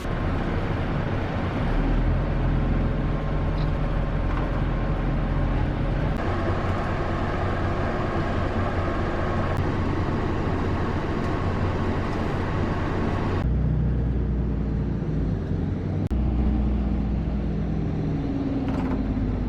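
Bus engine running with road noise, heard from inside the bus. The drone changes abruptly twice along the way.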